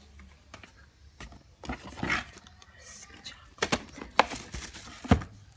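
Packaged items being handled inside a cardboard box: plastic wrapping crinkles and rustles, with a few sharp clicks and knocks in the second half, the loudest about five seconds in.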